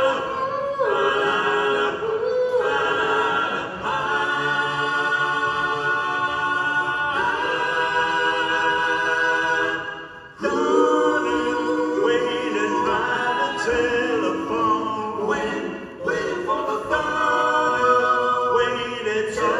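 Four male voices singing a cappella in close harmony through a hall PA, holding sustained chords that change every few seconds, with a brief pause about ten seconds in.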